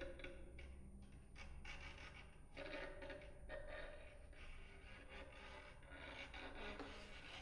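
Very quiet passage of contemporary chamber music for flutes, violin, viola and accordion: soft breathy, airy strokes over a faint held tone.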